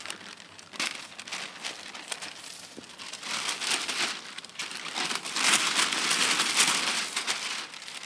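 A thin sheet, peeled from a wet oil painting, crinkling and crackling as it is handled, louder for a couple of seconds after about five seconds in.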